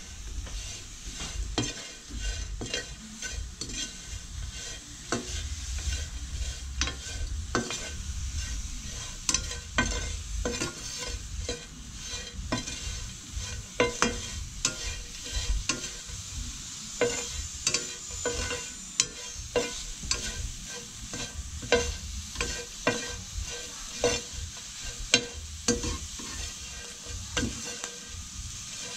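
Metal spatula scraping and clicking against a frying pan as whole crickets are stirred and dry-roasted, irregular strokes throughout, over a light steady sizzle.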